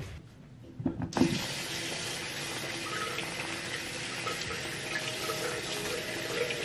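A few knocks about a second in, then a bathroom sink tap running steadily into the basin.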